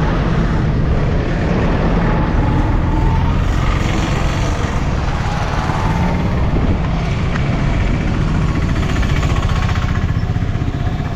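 A vehicle running steadily while driving along a road, its engine hum mixed with road noise.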